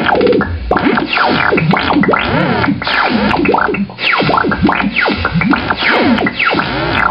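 A rapid run of sliding noise effects: many fast pitch sweeps up and down, one after another, like record scratching.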